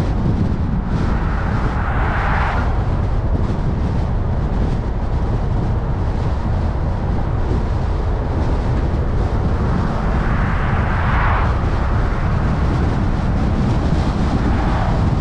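Steady road and wind noise from a car driving along, with a low rumble underneath and two swells of hiss, one about two seconds in and another around ten to eleven seconds.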